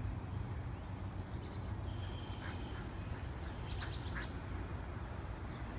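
A few short, high animal calls, in two clusters about a second and a half and four seconds in, over a steady low rumble.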